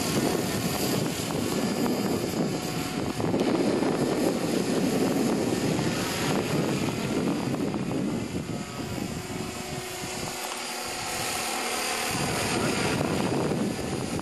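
SJM430 radio-controlled model helicopter flying overhead: a steady rotor buzz and whine that grows fainter for a few seconds past the middle and picks up again near the end. The owner notes some vibration and rotor blades still needing tracking.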